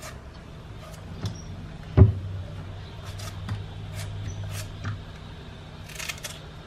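Knife cutting pieces off a raw gueroba (guariroba palm heart) into a bowl of lemon water: scattered faint clicks and small knocks, one louder knock about two seconds in, over a steady low hum.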